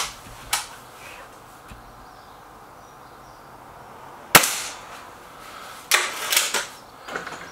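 Hatsan 900X break-barrel air rifle firing a single shot about four seconds in, a sharp crack. About a second and a half later comes a quick cluster of sharp knocks, with smaller clicks near the start.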